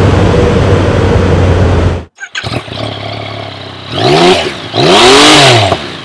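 Yamaha FZ-09's three-cylinder engine pulling steadily under way with wind rush, cut off abruptly about two seconds in. After a brief gap the engine idles and is revved twice, pitch rising and falling each time, the second rev longer and louder.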